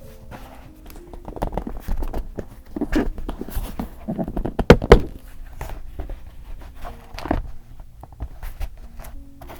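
Journaling supplies being handled on a desk: a run of knocks, taps and rustles, loudest about five seconds in, with another knock about seven seconds in.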